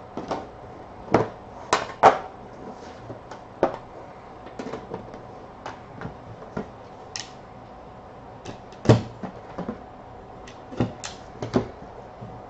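Hands opening a metal trading-card tin and handling the boxes inside: scattered knocks, clicks and light scrapes of the lid and cardboard, the loudest about two seconds in and again about nine seconds in.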